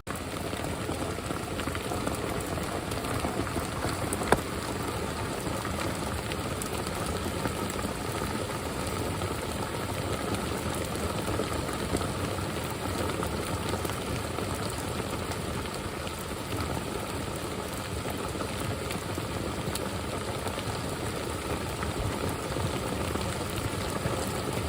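Steady rain falling, with faint scattered drop ticks and one sharper tick about four seconds in.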